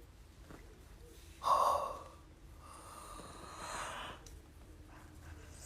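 A person yawning without voice: a short, sharp breath in about a second and a half in, then a longer, softer breath out.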